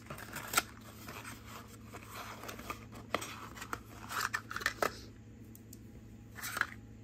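Light clicks and soft rustling of a small cosmetic package being handled and opened, with scattered single clicks, a cluster in the middle and another near the end.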